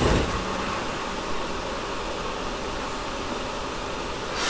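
Steady rushing noise inside a Tobu 10000-series commuter train car as it runs between stations, with the car's air conditioning running. A short thump comes right at the start.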